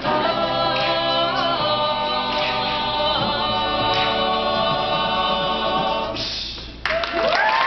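Male a cappella group singing in close harmony, holding a long final chord that fades out about six seconds in. The crowd then breaks into cheering and applause near the end.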